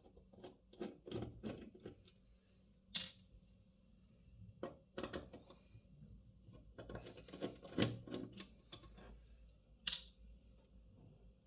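Scattered small clicks and taps of a screwdriver working screws out of a computer power supply's metal case, with two sharper clicks, one about three seconds in and one near the end.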